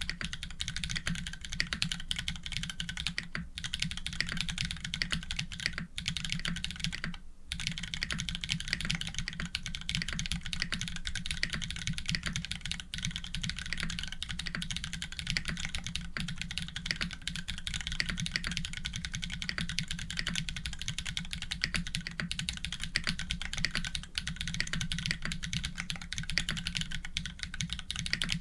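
Fast, continuous typing on a custom Orion v2.5 mechanical keyboard with Holy Panda tactile switches, an FR4 plate and GMK keycaps: a dense stream of keystroke clacks, with a brief pause about seven seconds in.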